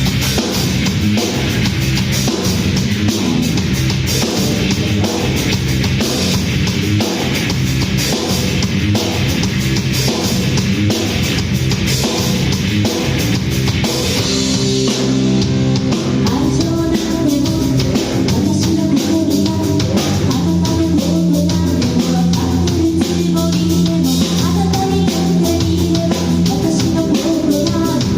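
Live rock band playing loudly: electric guitar, bass and drum kit. A steady drum beat drives the first half; about halfway through the music changes to longer held guitar and bass notes.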